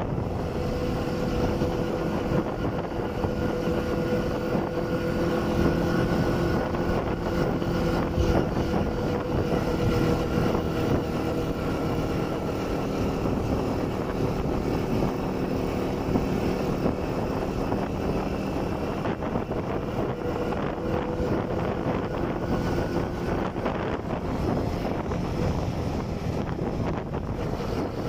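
Motorcycle engine running at a steady cruising pace while riding, with wind rushing over the microphone.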